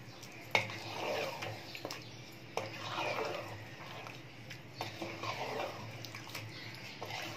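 Wooden spoon stirring chicken pieces through a thick yogurt-and-onion sauce in a pot: repeated wet, squelching swishes with a few sharp clicks of the spoon against the pot.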